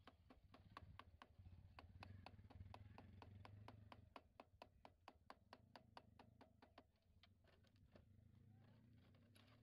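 Quick, even tapping, about four taps a second, that stops about seven seconds in, with a few fainter taps near the end, over a low hum.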